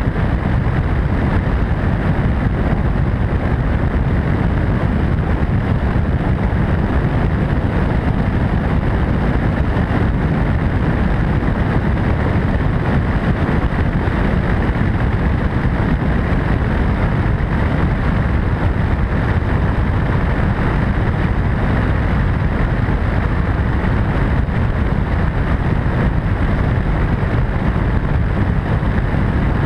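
MD600N helicopter in steady cruise flight: constant turbine and rotor noise mixed with wind rushing over the microphone.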